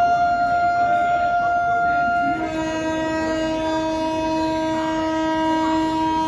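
Indian Railways electric locomotive horn blowing a long, loud blast. About two and a half seconds in it switches from a higher note to a lower, fuller one.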